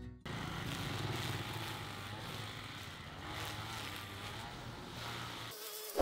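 An engine running steadily, with a low hum under a noisy haze. It stops about half a second before the end, where a thin wavering buzz and a sharp click take over.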